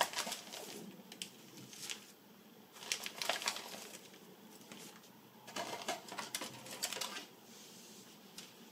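Clear plastic bag crinkling and rustling as a hand pulls plastic model-kit sprues out of it, in three spells of crackling with light clicks of the plastic parts.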